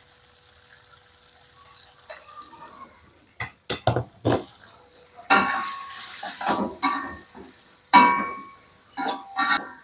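Metal spatula scraping and knocking against a wok as garlic and shallots are stir-fried with mashed tofu, with the oil sizzling. It starts about three and a half seconds in, after a faint steady hiss, and goes in repeated strokes.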